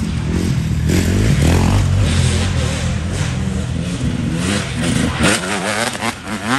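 Dirt bike engine revving as the bike rides past, its pitch rising and falling quickly with the throttle.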